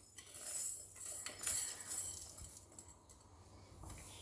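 Rice being tipped into a pot of tomato stew and stirred in with a spoon: a few soft swishes and light clinks on the pot, tailing off in the second half.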